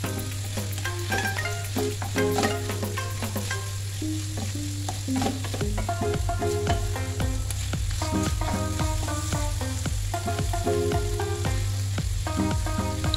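Onions and carrots sizzling in a stainless steel frying pan as a wooden spoon stirs and scrapes through them, mixing in tomato paste during the sauté. Quiet background music with held notes plays underneath.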